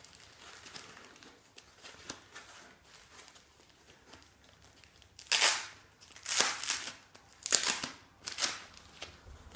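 Packaging being handled and crinkled: faint rustles and small clicks, then four louder crinkling rustles in the second half, each about half a second long.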